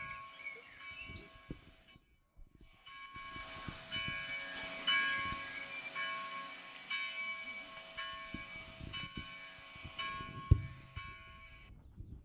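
A bell is rung repeatedly to call to worship, each stroke leaving a chord of ringing tones that hangs on. There are low knocks throughout and a sharp thump near the end. The sound cuts out for about a second around two seconds in.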